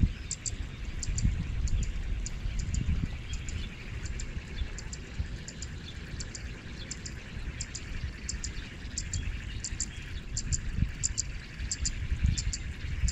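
Short, very high chirps in quick pairs, repeating steadily about twice a second, over a low rumble.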